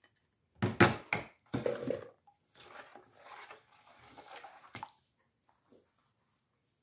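A few sharp knocks of a stick-blender shaft and utensils against a plastic bucket and tabletop, then quieter scraping as a spatula stirs thick soap batter in the bucket, ending in a single click.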